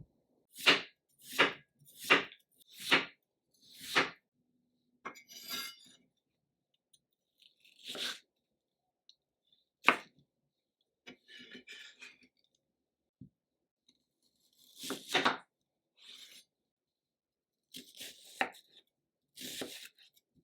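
Knife cutting vegetables on a cutting board: five evenly spaced chops, about one every three-quarters of a second, then scattered single cuts and softer handling sounds.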